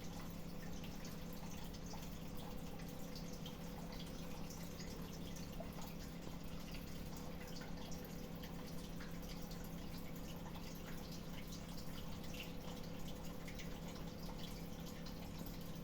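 Small drips and splashes of water, many faint irregular ticks, over a steady low hum.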